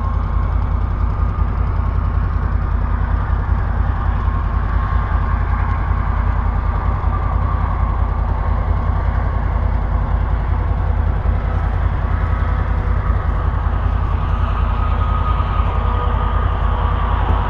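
A distant tractor pulling a planter, its engine running steadily while working the field, under a heavy, continuous rumble of wind on the microphone.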